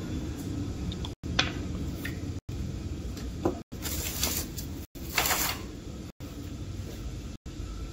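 Steady low background rumble with a few short knocks and taps, then two brief rustling hisses. The sound drops out for an instant about once a second.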